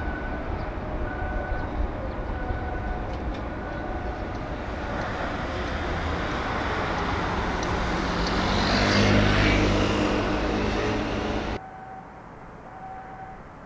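Traffic noise with a motor vehicle passing close by: a steady rumble that builds to a peak with an engine hum about nine seconds in, then cuts off abruptly near the end.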